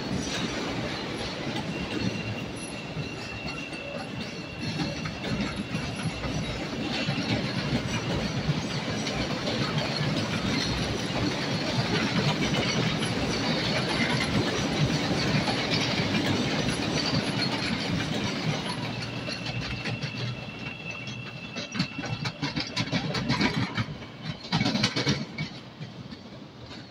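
CTA 'L' rapid-transit train running past over the yard tracks: a steady rumble of steel wheels on rail that is loudest midway, with a thin high tone coming and going. A run of sharp clacks over rail joints and switches comes near the end, and then the sound fades.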